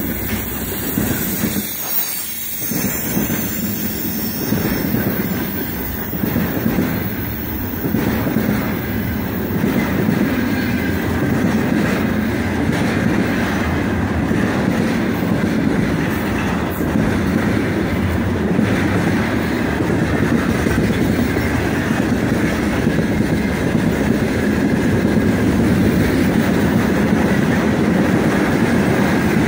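Freight train of container flatcars and tank cars rolling past at speed: the steady noise of steel wheels on the rails, growing louder from about a third of the way in.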